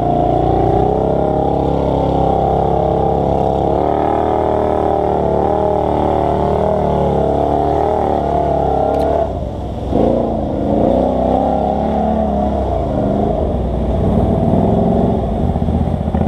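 ATV engine running under throttle, its pitch wavering up and down. About nine and a half seconds in it briefly drops off and falls in pitch, then picks back up.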